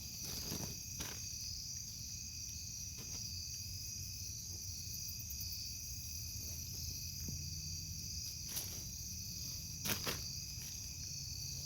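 Steady high-pitched chorus of night insects such as crickets, with a few brief rustles from hands digging through potting soil in a grow bag, the loudest just before 9 s and at about 10 s.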